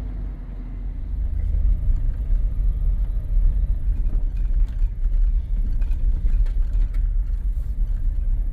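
Off-road vehicle driving up a steep dirt trail: a low, uneven rumble of engine and tyres that grows louder about a second in, with a few light knocks and rattles.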